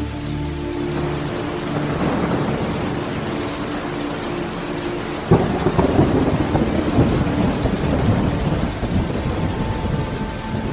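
Thunderstorm with steady rain: thunder rumbles up from about two seconds in, breaks into a sharp crack about halfway, then rolls on and fades toward the end.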